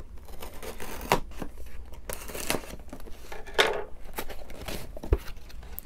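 Scissors cutting through packing tape on a cardboard box, then the box being worked open with scraping, tearing and crinkling of tape and cardboard. There are several sharp scratchy clicks, and a low knock a little after five seconds in.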